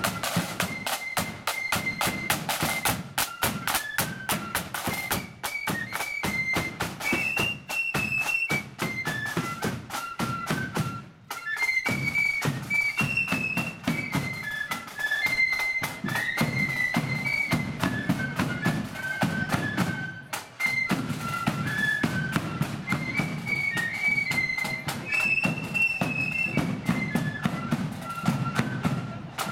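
Blood-and-thunder marching flute band playing: massed flutes carry a high tune over dense snare drum strokes and a bass drum beat, with two brief breaks in the playing.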